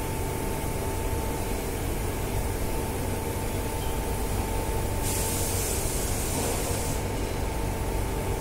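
CNC turning center running with its spindle stopped: a steady machine hum with a constant thin whine, while the tool turret is jogged toward the workpiece. About five seconds in, a hiss starts and lasts some two seconds.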